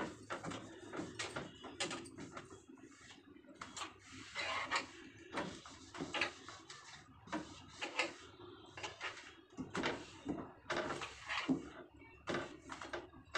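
Cloth scrubbing a kitchen shelf by hand in quick, irregular back-and-forth rubbing strokes, with sharper scrapes and knocks among them.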